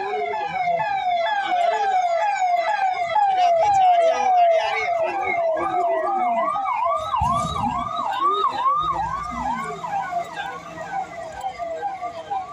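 Motorcade escort siren cycling in fast repeated sweeps, about two to three a second. The sweeps fall in pitch at first, change to rising sweeps about five seconds in, and are loudest around four seconds in.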